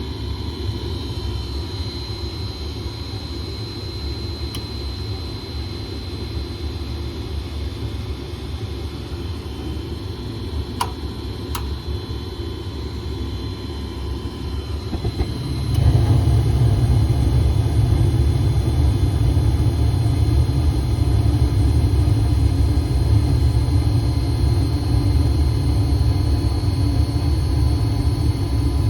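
Gas furnace running with a steady low rumble, with two faint clicks near the middle; a little past halfway the rumble steps up and stays louder as the circulating blower fan comes on, a sign the resoldered cold solder joint on the fan control board has cured the dead fan.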